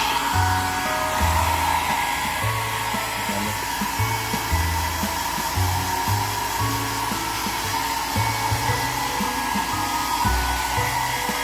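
Hand-held hair dryer running steadily, blowing a pet's coat dry after a bath.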